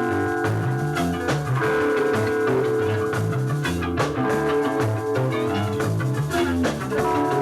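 Live early-1980s new wave band playing an instrumental passage: electric guitar and a moving bass line over drums, with bright sustained high notes.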